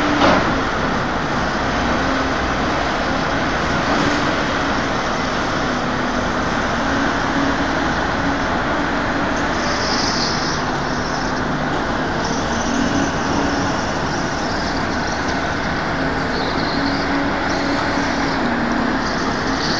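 Steady engine noise with a low hum that comes and goes.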